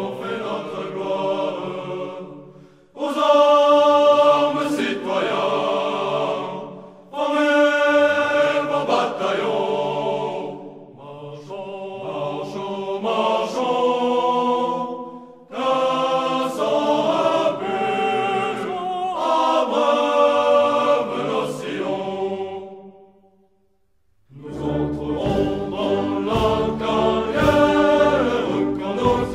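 A choir singing slow, sustained phrases separated by short pauses. After a brief silence near the end, a fuller accompaniment with deep bass comes in under the voices.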